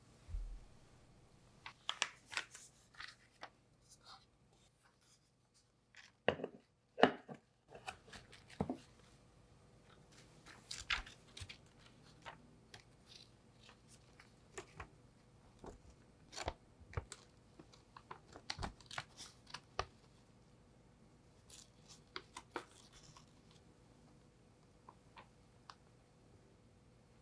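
Parchment paper lining crinkling and rustling in short, irregular crackles as it is peeled away from the sides of a chilled no-bake cheesecake. The loudest crackles come about seven seconds in.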